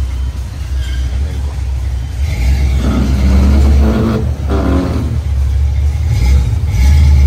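Chevrolet Caprice's engine running as the car rolls slowly past, a deep low rumble that swells louder for a couple of seconds in the middle.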